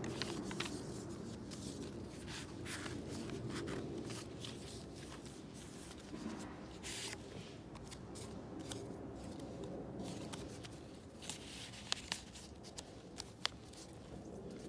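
Pages of a handmade paper journal being turned and handled: dry rustling and flapping of thick, layered aged papers and inserts, with a few sharp ticks near the end.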